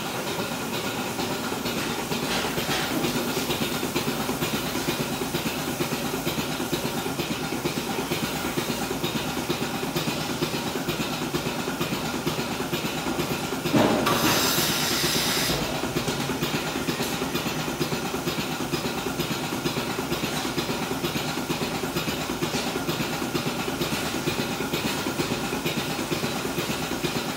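Goat milking machine running: the vacuum system and pulsators make a steady noise with a rhythmic clicking. About halfway through, a sudden hiss of air lasts about two seconds.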